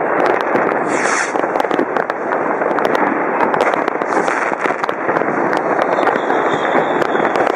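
Many fireworks rockets and firecrackers going off across a city at once: a dense, unbroken crackle of sharp bangs over a steady rumble. A brief hiss about a second in and a thin whistle near the end.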